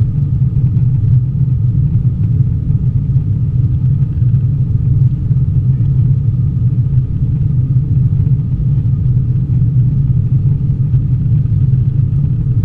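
Cabin noise of an Airbus A320-232 climbing after takeoff, heard from a window seat: a steady low rumble of its IAE V2500 engines and the airflow, with a faint steady high whine above it.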